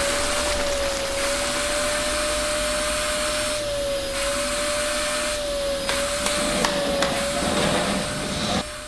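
Vacuum cleaner running steadily, its motor whine wavering slightly in pitch over a rushing air noise, cutting off shortly before the end.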